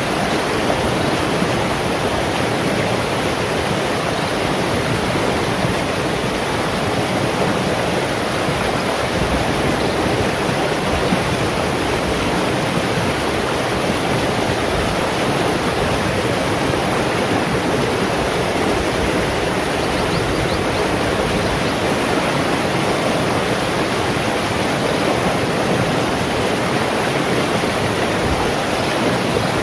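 Shallow, fast stream rushing over rocks and boulders: a steady, unbroken rush of water.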